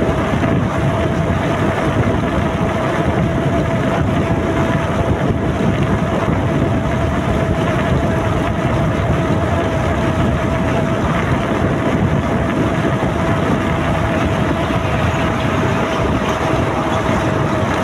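Motorcycle riding at a steady cruising speed, its engine running under a heavy rush of wind on the microphone, with a steady whine throughout.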